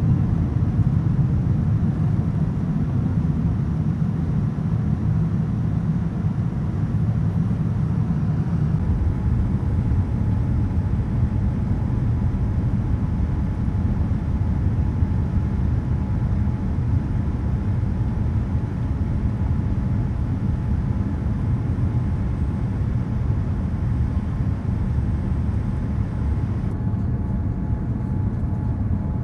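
Steady low rumble of a Boeing 787-9's GEnx-1B engines and airflow, heard inside the passenger cabin. The sound shifts slightly about nine seconds in.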